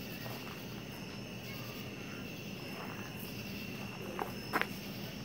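Steady night chorus of crickets, with two short sharp clicks about four and a half seconds in.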